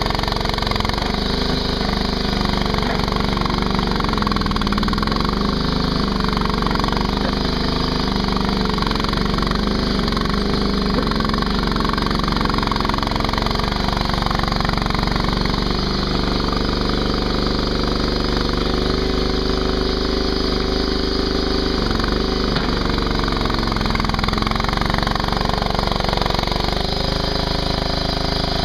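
Mini skid steer's engine running steadily at working speed while moving dirt, its pitch shifting slightly up and down as it works.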